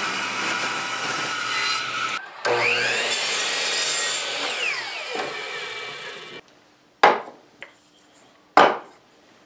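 A table saw cutting wood for about two seconds, then a compound miter saw spinning up with a rising whine, cutting through wood and winding down with a falling whine. Two sharp knocks near the end.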